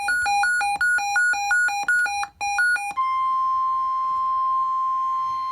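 Electronic alert beeps switch back and forth between a low and a high pitch a few times a second. About three seconds in, they give way to one steady single-pitch warning tone: the emergency alarm tone that announces a weather warning broadcast.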